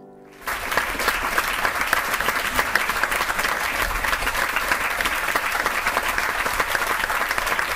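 The last sung keyboard note dies away, and about half a second in, studio applause breaks out and carries on steadily.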